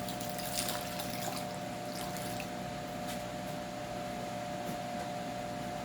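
Electric fan running with a steady hum and airy hiss, with a few faint clicks of things being handled.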